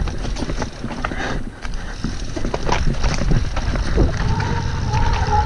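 Mountain bike rolling fast down dirt singletrack: tyre rumble over dirt and roots with rapid clicks and knocks of the bike rattling. A steady high whine joins about four seconds in.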